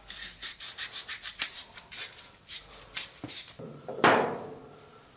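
Rolled-up sandpaper scrubbing back and forth through the bore of a frozen-up dryer belt tensioner pulley, rapid rasping strokes to clean it out. About four seconds in, a single clank with a short ringing tail.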